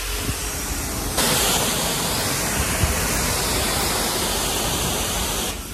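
Self-serve car wash high-pressure rinse wand, set at about 1100 to 1200 PSI, spraying water onto the concrete bay floor: a steady hiss of spray that turns louder about a second in and drops off just before the end.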